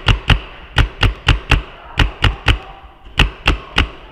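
Paintball marker firing repeatedly at close range: sharp pops in quick strings of three or four shots, about three a second, with short pauses between strings.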